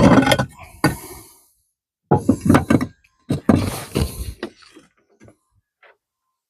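Hard knocking and clattering from roof tile being worked loose during removal, in three short clusters of strikes, then a couple of faint taps near the end.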